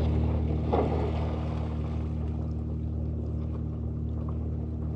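Steady low drone of an idling boat engine, with a brief louder rush of noise about a second in.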